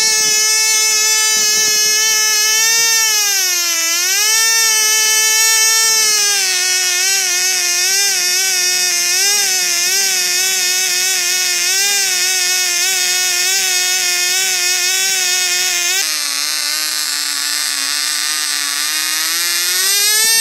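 COX Tee Dee .010 two-stroke glow model engine running at high speed with its propeller spinning, a high-pitched buzz. Its pitch dips about four seconds in, then settles a little lower with a slight waver, drops again about sixteen seconds in, and climbs briefly at the very end.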